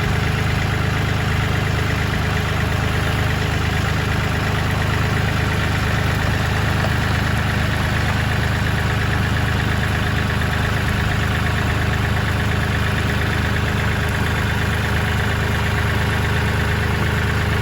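Kioti CK3510SE tractor's three-cylinder diesel engine running steadily at an even speed.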